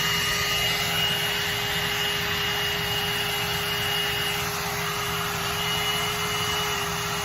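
Hot air brush (one-step hair dryer brush) running on its high setting: a steady motor whine with a higher whistle over the rush of blown air.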